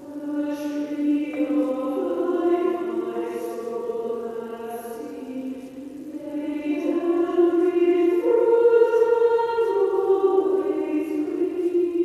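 Choir singing slow, held notes in several parts, with a swell in loudness about two-thirds of the way through.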